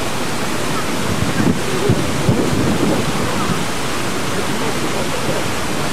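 Steady rushing noise of wind on the microphone and water aboard a moving paddle steamer, with a few stronger buffets about two seconds in.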